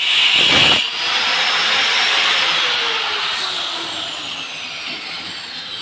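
An electric power tool's motor: a loud burst of running under load for the first moment, then the motor winding down with a slowly falling pitch over the next few seconds.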